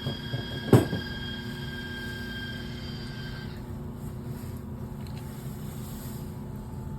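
Furnace running with a steady hum and a high whine that cuts off about halfway through; one sharp knock about a second in.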